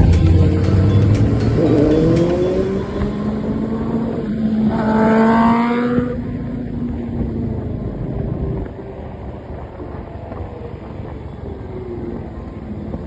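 Motorcycle engine running and revving, its pitch rising twice in the first half, then steadier and quieter after about nine seconds.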